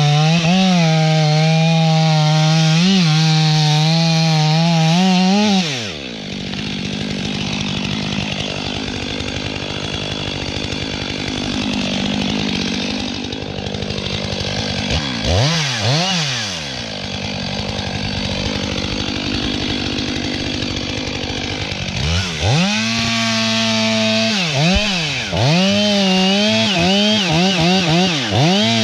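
Stihl MS 500i fuel-injected two-stroke chainsaw cutting into a standing tree's trunk: it runs at full throttle in the cut for about six seconds, drops back to a quieter, lower run with a couple of quick revs in the middle, then goes to full throttle again and ends with a rapid series of revs up and down.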